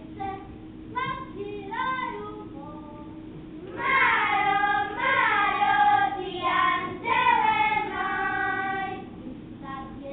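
Children singing: a single voice in two short phrases, then several children singing together, louder, from about four seconds in.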